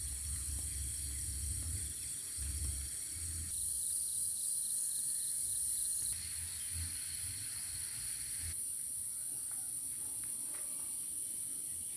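Steady, high-pitched chorus of insects, with a low rumble in the first few seconds and again near the middle.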